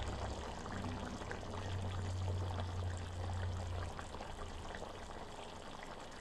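Chicken adobo with potatoes simmering in a pan, the sauce bubbling with many small pops, over a low hum that fades about four seconds in.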